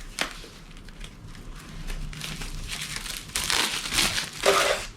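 Paper packaging crinkling and tearing in a string of rustles and small snaps, busier and louder in the second half, as the pull-tab wrapping is stripped off an Apple Watch box.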